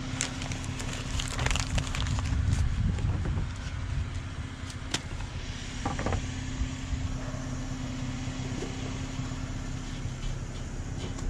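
Knocks and light clanks from a Weber charcoal kettle grill's enamelled steel lid and body being handled and set down, over the steady low hum of an idling vehicle.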